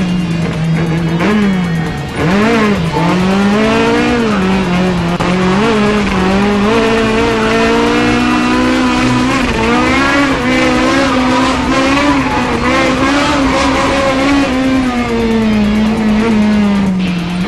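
Naturally aspirated Toyota Corolla KE72's four-cylinder engine held at high revs while drifting, its pitch dipping and climbing with the throttle, sharply so a couple of seconds in, with tyres squealing.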